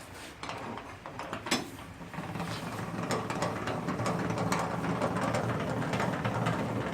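Small hand-wound jack being cranked to lift a motorcycle's rear wheel, a steady run of small mechanical clicks that builds up about two seconds in.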